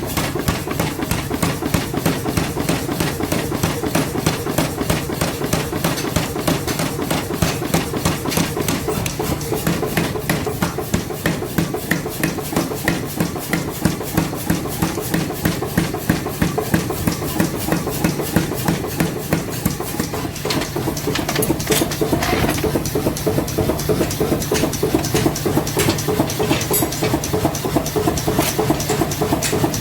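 Hammer blows on metal during forging, struck in a fast, even rhythm of several a second, over a steady machine hum.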